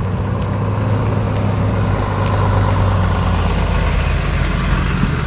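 Engine and tyres of a Ram 5500 flatbed work truck as it drives up a concrete driveway and rolls past close by, getting a little louder over the first couple of seconds.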